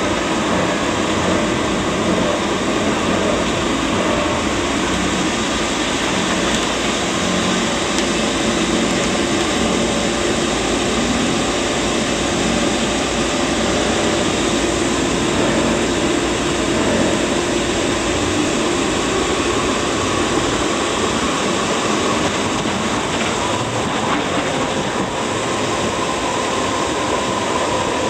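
Steady running noise inside a moving MUNI Metro light-rail car: the rumble of the car rolling along the track, with a faint steady whine.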